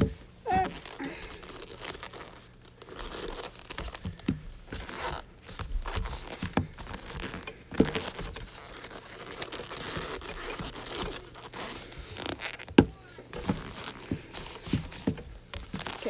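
Padded boxing gloves rubbing and rustling against each other and a Rubik's cube as the cube is clumsily turned, with scattered clicks and knocks from the cube's layers and the gloves. One sharp knock stands out about three-quarters of the way through.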